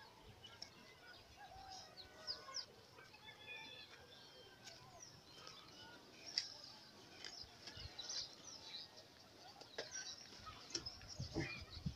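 Birds chirping faintly outdoors: many short calls and quick whistling glides, with a few soft clicks or knocks.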